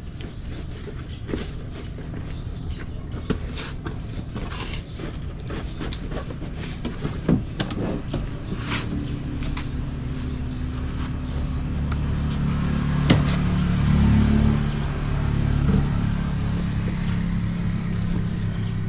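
Scattered clicks and knocks, then a motor vehicle's engine running with a low steady hum that grows louder about halfway through and peaks near the three-quarter mark.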